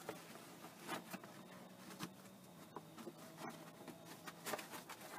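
Quiet handling sounds: a fabric hanging storage bag rustling, with light clicks and knocks as it is held and positioned against the bed panel, over a faint low steady hum.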